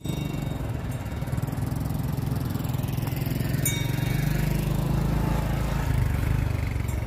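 A small engine running steadily, a low even drone, with a brief click about halfway through.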